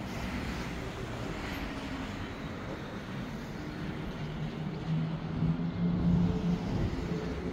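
Street traffic: road vehicles running, with a steady low engine hum growing louder from about five seconds in as a vehicle comes near.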